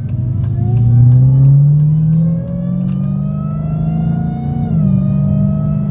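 Dodge Challenger Hellcat's supercharged 6.2-litre V8 accelerating, its pitch rising steadily and then dropping sharply just before the end as it shifts up, with its driver's-side exhaust freshly reconnected after a leak. A light regular ticking, about three a second, runs through the first half.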